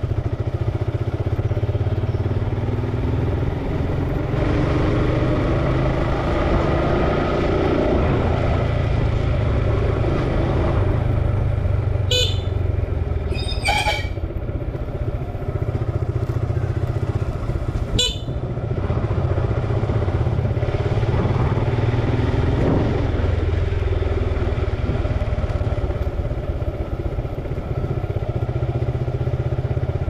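Suzuki Gixxer's single-cylinder engine through its stock exhaust, running at low road speed. Its note rises and falls gently with small throttle changes. Three brief, sharp high-pitched sounds cut in about twelve, fourteen and eighteen seconds in.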